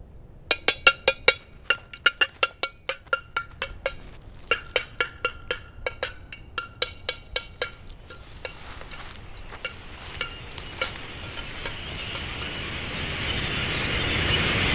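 A fast, uneven run of sharp clinking ticks, each with a brief bright ring, gives way after about eight seconds to a rushing noise that swells steadily louder and cuts off abruptly.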